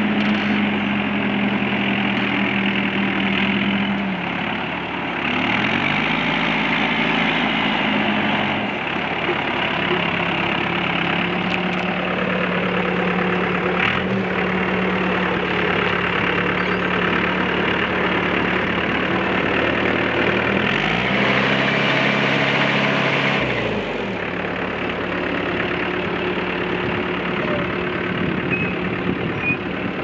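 Komatsu WB140-2N backhoe loader's diesel engine running as the machine drives, its engine speed dropping and picking up again several times.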